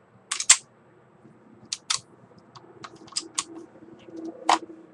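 Sharp clicks from handling the empty Sig P226 pistol and its kydex holster. The clicks come mostly in pairs, four times over the few seconds.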